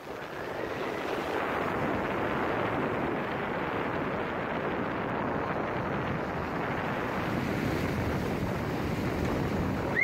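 Rough sea surging and breaking into foam, a steady rush of surf with wind buffeting the microphone. Right at the end a wave crashes up in spray.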